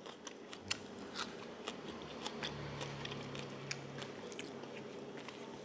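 Close-up chewing of boiled chicken and fresh herb leaves: soft irregular mouth clicks and small crunches, with a low hum for a couple of seconds in the middle.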